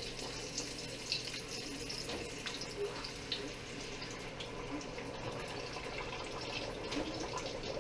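Tortilla deep-frying in hot oil in a pot: steady sizzling with scattered small pops and crackles.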